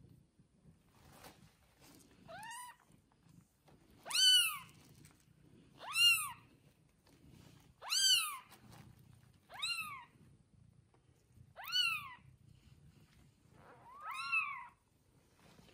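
One-day-old newborn kitten mewing: seven short, high-pitched cries, each rising then falling, about one every two seconds.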